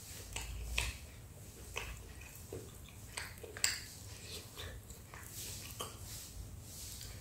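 Close-up chewing of a crisp pizza crust (a Pizza Hut Melts piece): scattered crunches and wet mouth clicks at irregular intervals, the sharpest about three and a half seconds in.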